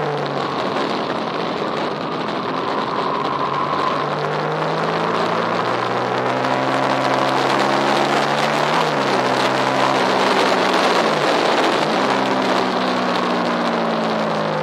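Racing engines running on a circuit. One engine climbs in pitch as it accelerates and drops sharply at gear changes about nine and eleven and a half seconds in, over the steady sound of other engines.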